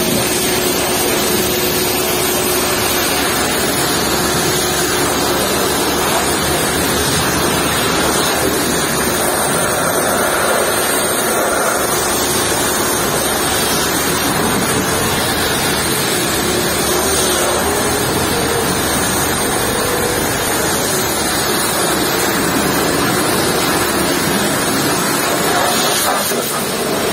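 Pressure washer jet spraying water onto a truck cab: a steady, loud hiss of water.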